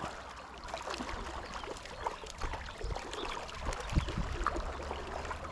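Shallow river water running and splashing in small, irregular sploshes over a steady low rumble.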